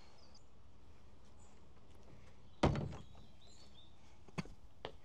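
A wooden door thuds once about halfway through, then two light clicks follow near the end.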